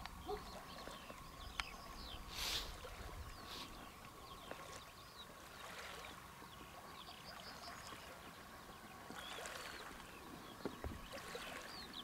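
Faint natural ambience: scattered short animal chirps over a steady thin tone, with a brief soft rush of noise about two and a half seconds in.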